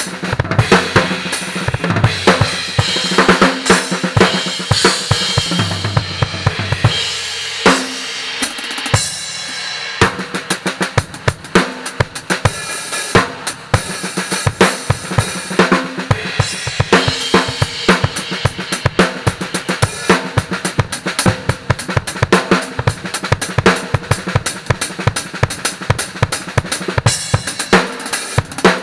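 Acoustic drum kit played hard and fast, with kick, snare and Anatolian cymbals. About a quarter of the way in, the kick drops out for a few seconds under ringing cymbals. Then dense, rapid strokes resume.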